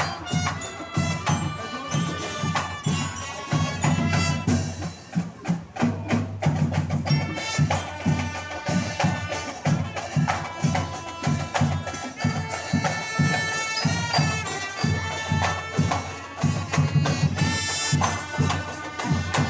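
Street marching band playing live: brass horns sound held notes over a steady marching drum beat.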